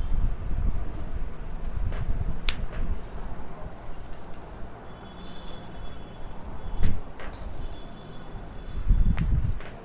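Faint high tinkling tones like small chimes ringing on and off, with a few sharp clicks and low thuds, the heaviest thuds about seven and nine seconds in.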